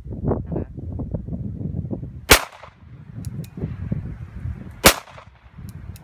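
Two gunshots about two and a half seconds apart, each a sharp crack with a short echo, over a low rumbling background.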